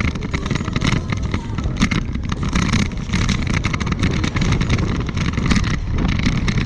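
Steady wind rush and buffeting on the microphone of a camera riding along a paved path, with a low rumble of wheels over the surface.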